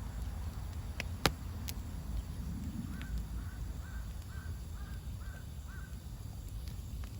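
A bird calling seven times in quick, even succession, about three seconds in. Before that comes a single sharp click, over a steady low rumble.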